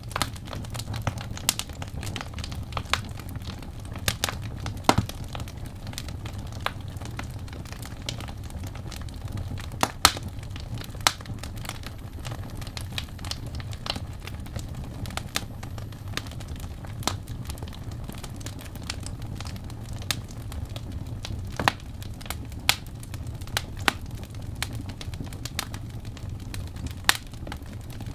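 Wood fire crackling: irregular sharp pops and snaps, a few louder than the rest, over a steady low rumble.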